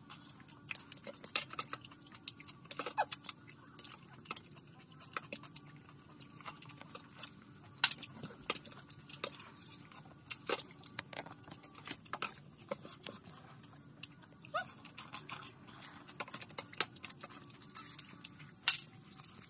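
Metal spoon and fork clinking and scraping against a plate while eating, in irregular sharp clicks.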